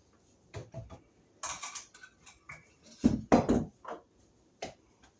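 Irregular knocks, clicks and scrapes as an electrical outlet box is worked loose from a wall stud and pulled up. The loudest is a cluster of heavy knocks about three seconds in.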